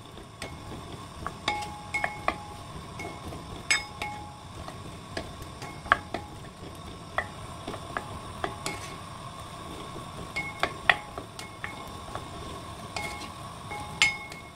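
Wooden spatula stir-frying cubed radish and beef in a heavy black pot: irregular knocks and scrapes against the pot, some of them ringing briefly, over a faint sizzle of the oil.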